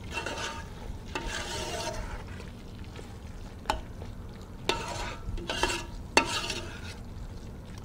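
A metal spoon stirring thick butter chicken gravy in a stainless steel pot, scraping through the sauce in stretches, with a few sharp clicks of metal on metal.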